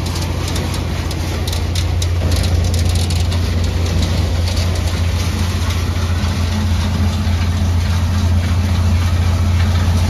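Farm tractor engine idling steadily, growing slightly louder about two seconds in.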